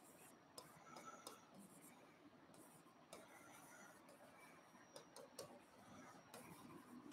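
Faint stylus ticks and scratches on the glass of an interactive whiteboard as a line of text is handwritten, coming as irregular small taps.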